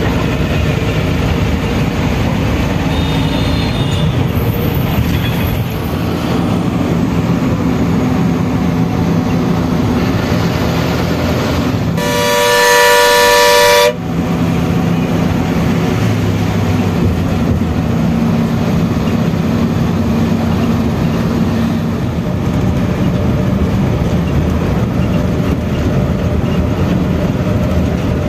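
Bus engine running with road noise inside the cabin while driving, and a loud horn blast lasting about two seconds about halfway through.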